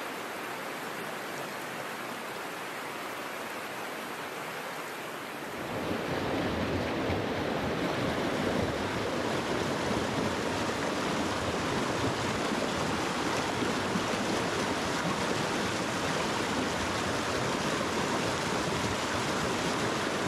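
Rushing water of a small rocky mountain stream, a steady rush of white water over boulders. It is softer for the first five seconds, then louder and fuller from about five seconds in.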